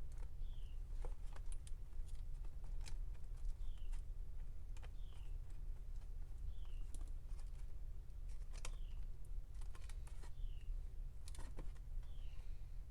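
Small irregular clicks and taps of iPod parts being handled and fitted back together, over a steady low hum. A short, high, falling chirp repeats every second or two.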